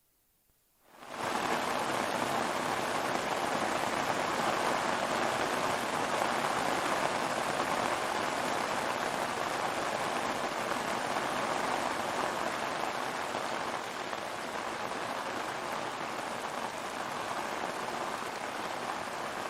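Torrential rain pouring down in a dense, steady hiss that starts abruptly about a second in.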